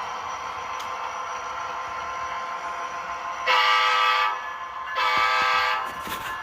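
Model diesel locomotive with a DCC sound decoder running steadily, then its horn sounding two blasts of just under a second each through the small onboard speaker, the second starting about five seconds in.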